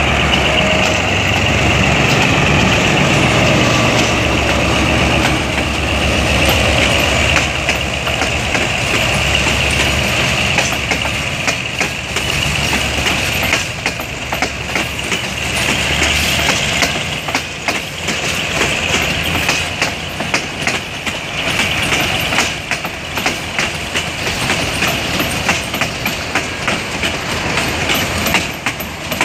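GM G22U diesel-electric locomotives running as they pass close by, their steady low engine note fading after about ten seconds. Freight wagons then roll past with a rapid clatter of wheels over the rail joints.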